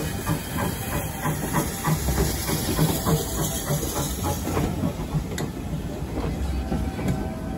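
Andrew Barclay saddle-tank steam locomotive 'Horden' passing with a train of coaches: steam hissing over an even, rhythmic beat for the first few seconds, then the coaches rolling by with wheels clicking over the rail joints.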